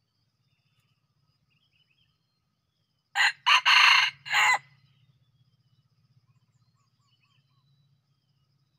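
A red junglefowl rooster crows once about three seconds in: a short, clipped crow in four quick parts, lasting about a second and a half.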